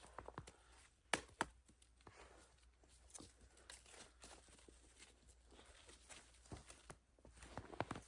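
Faint scattered clicks and rustles of something being handled, with two sharper clicks just over a second in and a few more near the end.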